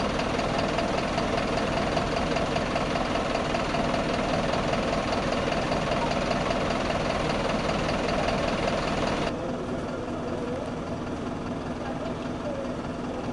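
A city bus's diesel engine idling steadily close by. About nine seconds in, the sound drops to a quieter, steady hum.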